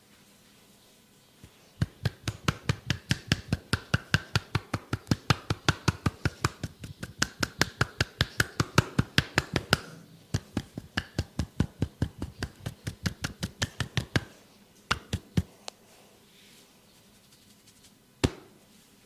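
Percussive massage: the masseuse's hands striking the client's head and shoulders in a fast, even rhythm of sharp slaps, about five a second, with a short break about halfway, then a few single strikes and one last sharp one near the end.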